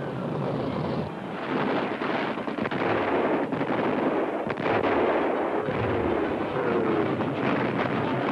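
Battle noise of a military field exercise: a dense, continuous barrage of artillery and gunfire with explosions, and a few sharp reports standing out near the middle.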